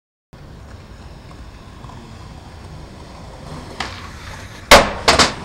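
Skateboard wheels rolling over concrete, a sharp pop of the tail, then two loud smacks about a third of a second apart as the board comes down after jumping a long stair set.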